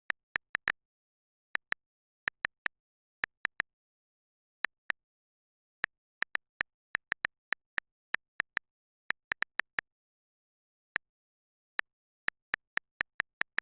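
Phone's on-screen keyboard key-press clicks: short, identical ticks at an uneven typing pace, with dead silence between them.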